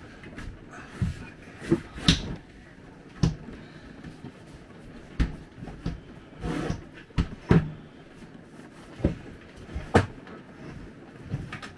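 Irregular knocks and thumps, about ten of them, as things are handled, moved and set down and cupboard or storage doors are worked inside a small RV trailer during cleaning.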